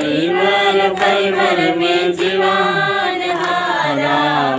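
Several voices singing a slow, unaccompanied song in unison, with long held notes that step up and down in pitch.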